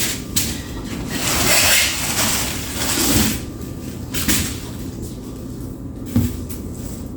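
Handling noise: a rustle a second or two in, then a few light knocks.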